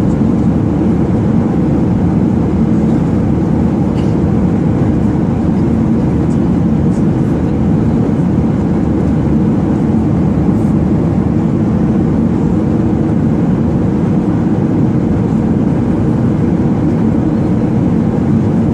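Steady cabin noise inside an airplane in flight: a constant low rumble of engine and airflow that does not change.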